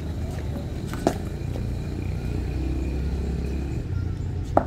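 Two sharp knocks of a hard cricket ball in the nets, one about a second in and a louder one near the end, over a steady low rumble.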